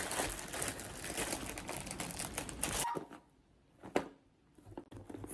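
Packaging being handled and opened for unboxing: crinkling and rustling for about three seconds. Then it goes quiet apart from a single sharp click about four seconds in.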